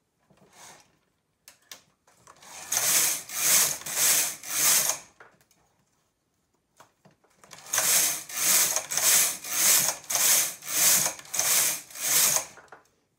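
Silver Reed SK860 knitting machine carriage sliding back and forth over the needle bed, each pass a rasping swish that knits one row on a small group of needles. About four passes come from about two seconds in, then after a pause a quick run of about eight passes, roughly one every half second.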